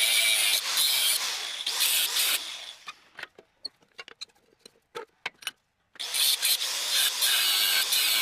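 Homemade machine running loudly, dying away about three seconds in to a few light clicks and knocks, then starting up again abruptly about six seconds in.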